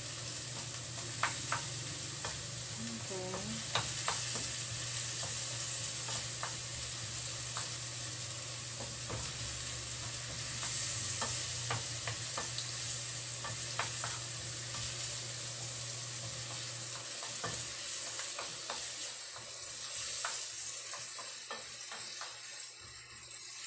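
Bacon, garlic and diced bell pepper sizzling in a frying pan as a wooden spoon stirs them, with frequent clicks and scrapes of the spoon against the pan. A low steady hum underneath stops about two-thirds of the way through.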